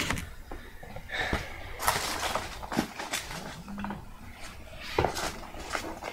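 Packaging rustling and crinkling, with scattered light clicks and knocks as small containers of shisha tobacco are handled and lifted out of a shipping box.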